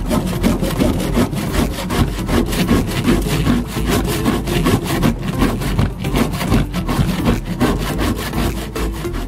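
Metal hand plane shaving pine lumber in repeated quick strokes, each stroke a dry rasping scrape as the blade cuts a shaving.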